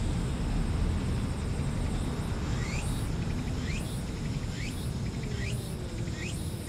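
Steady low outdoor rumble, with a high rising chirp repeating about once a second from a couple of seconds in.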